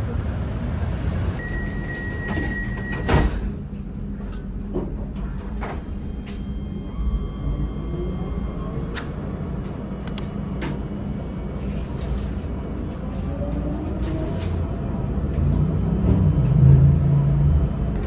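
Tram door-closing warning tone held for a couple of seconds, then the sliding doors shut with a sharp knock about three seconds in. The tram then pulls away, its motors whining up in pitch over a steady rumble, which grows louder near the end.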